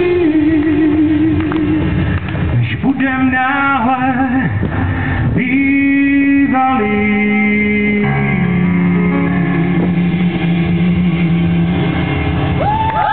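A live band playing, with a male singer holding long notes with a wavering pitch over electric guitar and drums.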